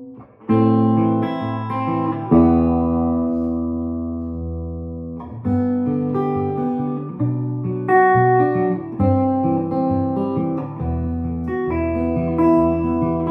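1960s Höfner Verithin thinline hollow-body guitar being played: picked notes and chords begin about half a second in, one chord is left ringing for about three seconds, then a run of shorter notes and chords follows.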